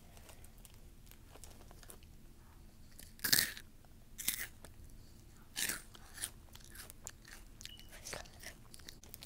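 Spicy crunchy chips being bitten and chewed. A few loud crunches start about three seconds in, with fainter chewing ticks between them.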